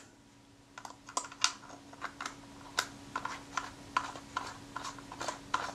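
Steel tubular spanner clicking against the shutter retaining ring inside the back of a Kodak Retina IIIc as it is seated and turned to tighten the ring. It makes a string of small, irregular metallic clicks, two or three a second, over a faint steady hum.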